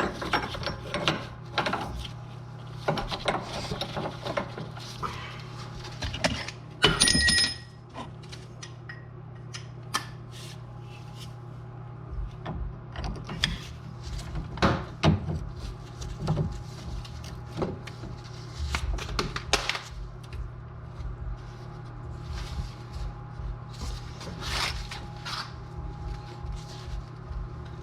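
Metal clinks and knocks of an inner tie rod wrench being fitted and worked on a newly installed inner tie rod, with one sharp ringing metal clank about seven seconds in. A steady low hum runs underneath.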